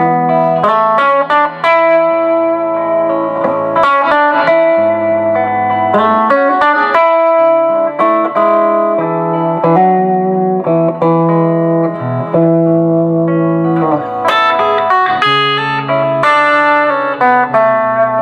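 Two electric guitars playing together: a Telecaster fitted with a Bigsby vibrato and a Seymour Duncan Little '59 pickup plays picked lead lines over a looped Les Paul chord part. The notes are held and ringing, showing both guitars in tune with each other up the full length of the neck after a fresh setup.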